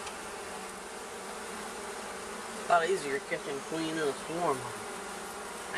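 Many honeybees buzzing steadily. Around the middle there is a short stretch of brief, indistinct voice sounds.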